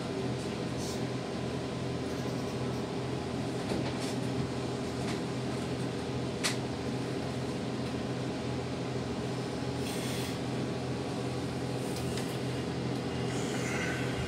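Steady hum and fan noise of a standing electric train's cab equipment, with a few light clicks and a brief hiss.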